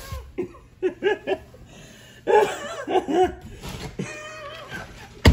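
A man laughing in two bouts of short bursts.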